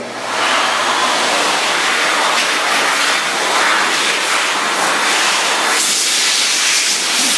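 Electric hand dryer running: a loud, steady rushing blast that switches on abruptly at the start.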